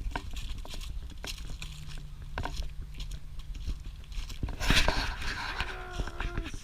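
Crunching and crackling of footsteps moving through dry leaves and brush, a string of short sharp snaps, with one louder rustle a little over halfway through.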